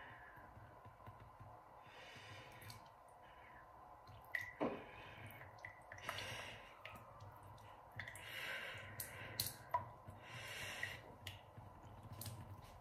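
Saline nasal rinse from a squeeze bottle into a nostril after nose surgery: a few faint breathy rushes of rinse and breath, with dripping into a basin and a few soft clicks.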